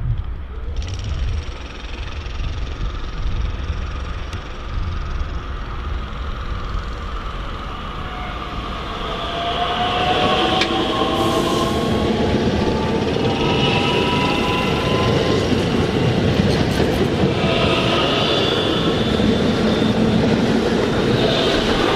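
National Express Bombardier Talent 2 (class 442) electric multiple unit approaching and running in past the platform: a low rumble at first, then from about nine seconds in the train grows louder, its traction motors whining in gliding tones, with several bursts of high-pitched squeal.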